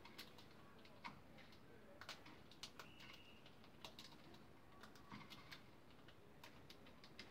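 Near silence: faint, scattered small clicks and ticks, with a brief faint high tone about three seconds in.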